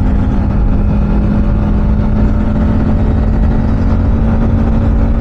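Yamaha MT-15's single-cylinder engine holding a steady note as the bike cruises at constant speed, over a low rumble of wind on the microphone.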